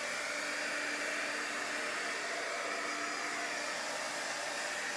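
Handheld craft heat gun blowing steadily, drying freshly applied paint on a wooden board.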